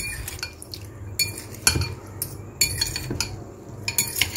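A metal fork tossing sliced vegetables in a glass bowl, clinking against the glass about seven times at irregular intervals.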